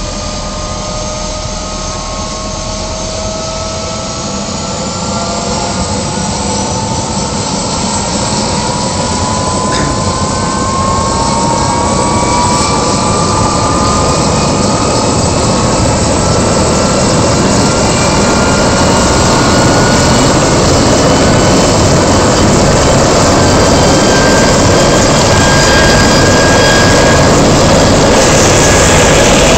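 Agusta-Bell 412 helicopter's twin turboshaft engines and rotor spooling up on the ground. A turbine whine rises slowly in pitch and the sound grows steadily louder as the rotor gathers speed.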